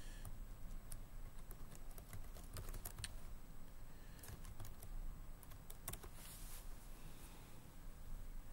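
Typing on a computer keyboard: faint, irregular key clicks in short bursts while code is edited and a script is rerun.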